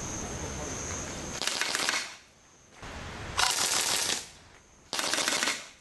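Evanix Giant PCP air rifle firing three short full-auto bursts, each well under a second, the pellets going out at about ten shots a second. The bursts start about a second and a half in, three and a half seconds in and five seconds in.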